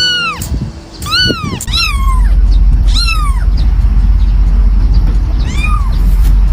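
A cat meowing several times: short, high calls that rise and fall in pitch, with the last one a few seconds after the others. From about two seconds in, a loud steady low rumble runs beneath the meows.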